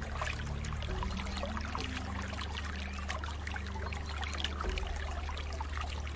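Running water trickling and splashing, with many small splashes and gurgles over a steady low rumble.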